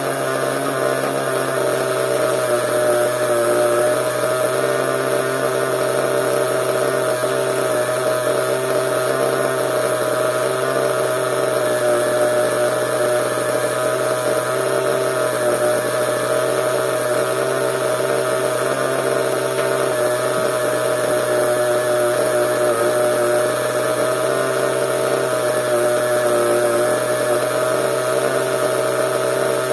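Small glow-fuel (nitro) engine of a CEN RC monster truck running steadily at an even, unchanging speed.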